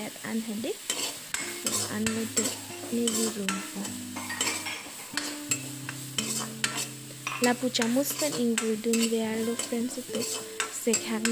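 A metal ladle stirring and scraping small shrimp around a black iron kadai, making repeated clinks and scrapes of metal on metal over the sizzle of frying.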